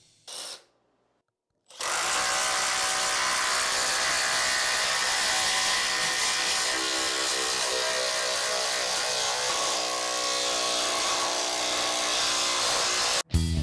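Makita XDT14 brushless impact driver hammering a fastener in, running steadily for about eleven seconds. It starts about two seconds in after a brief blip and cuts off suddenly near the end.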